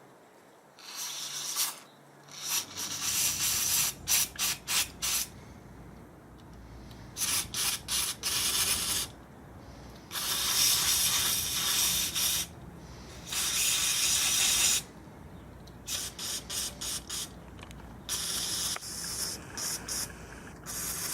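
Aerosol electric motor cleaner hissing out in repeated bursts, some short quick puffs and some held for a second or two, as it is sprayed into the vent holes of a brushed RC car motor to flush out dust.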